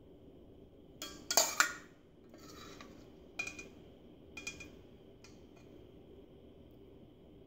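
A serving spoon scraping and knocking against a stainless steel saucepan as sauce is scooped out: a quick clatter of knocks about a second in, the loudest part, then a short scrape and two lighter clinks near the middle.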